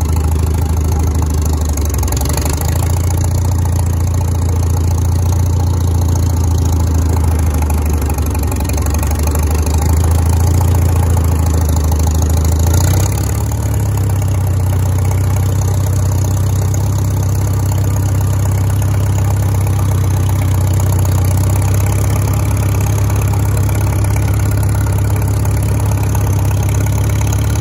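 Antique tractor's engine running steadily through its open vertical exhaust stack while the tractor is driven along. About halfway through, the note steps up a little.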